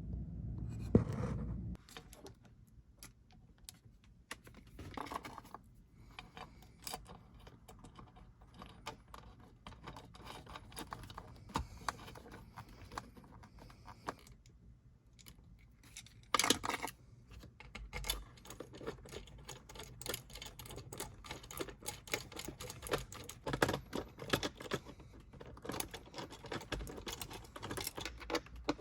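Hand tools and small metal parts clicking and clinking irregularly during work under a car, with a few louder knocks about a second in, about halfway through and again a little later.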